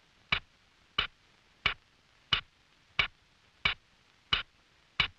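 Cartoon sound effect: a run of short, sharp ticks, evenly spaced at about three every two seconds, eight in all, keeping time with a dotted trail being drawn across the picture.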